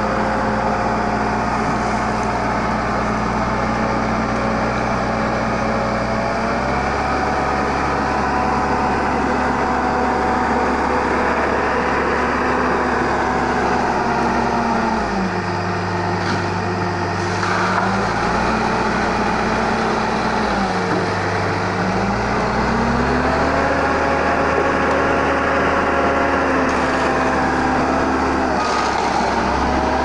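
Diesel engine of a Schwing Stetter SLM self-loading concrete mixer running steadily. Its speed drops and picks up again twice, about halfway through and a few seconds later.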